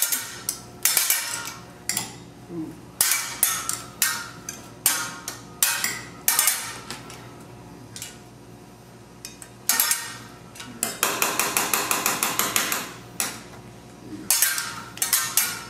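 Teppanyaki chef's metal spatula and utensils clanging against each other and the steel griddle in a showy rhythm: single ringing strikes, then a fast rapid-fire roll about eleven seconds in.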